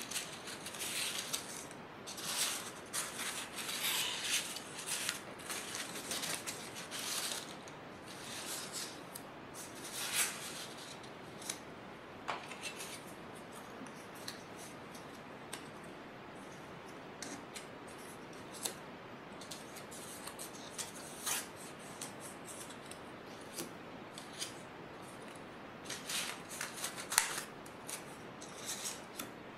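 Construction-paper leaf cut-outs rustling and crinkling as they are pulled apart and laid down on watercolor paper. The rustling comes in short, crisp flurries, busiest in the first ten seconds and again near the end, with scattered light taps and rustles in between.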